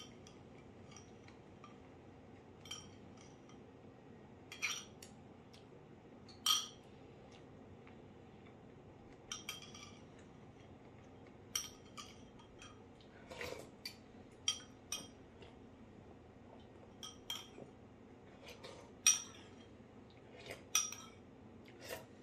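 Metal spoon clinking and scraping against a small ceramic bowl while eating from it: scattered short clinks, one every second or two.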